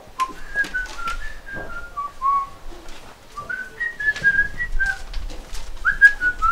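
A person whistling a tune in short, clear notes that step up and down, with a short pause about halfway through. Faint clicks and knocks sound alongside.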